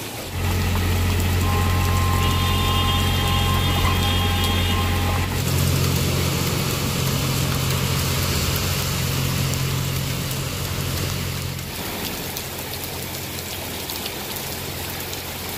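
Heavy rain pouring onto a flooded street, with the deep steady hum of a vehicle engine running underneath for most of the time, dropping away about twelve seconds in. A thin high whine sits over it for a few seconds near the start.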